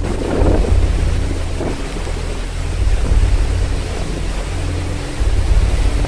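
Storm wind gusting over a phone's microphone, with the rush of heavy sea and spray breaking against a cruise ship's hull.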